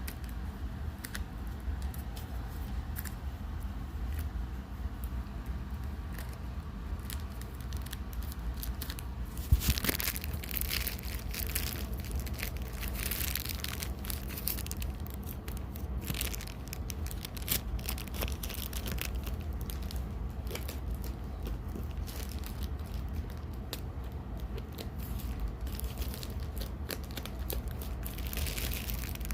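Packaging being torn open and crinkled by hand, with scattered clicks and rustles and one sharp knock about ten seconds in, over the steady low hum of a room heater.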